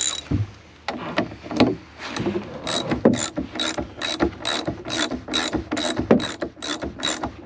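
Hand ratchet wrench being worked to turn a bolt: a knock and a few clunks, then from about two and a half seconds in a steady run of sharp ratchet clicks, about three a second.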